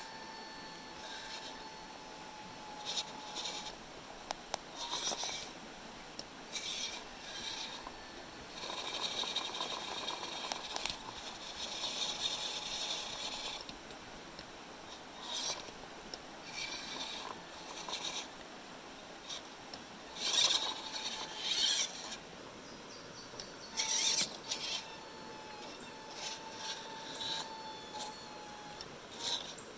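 A 1/16 WPL C-14 RC crawler driving, its small 130-size brushed electric motor and gearbox whirring in repeated bursts of throttle. The longest burst runs about four seconds, near the middle, and a faint steady whine is heard between bursts.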